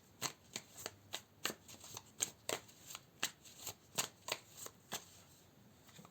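Tarot deck being shuffled by hand: a run of sharp card slaps and flicks, about three a second, that stops about five seconds in.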